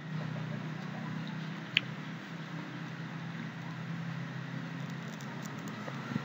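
Steady low background hum with faint hiss, and one brief click a little under two seconds in.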